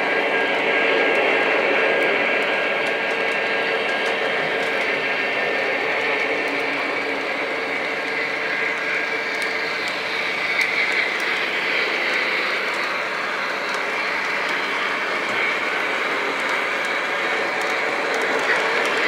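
Lionel O-gauge model train running on three-rail track, led by the LionChief 2.0 Alaska Railroad 0-6-0T steam switcher: a steady rolling rumble of wheels on the rails with the locomotive's motor hum.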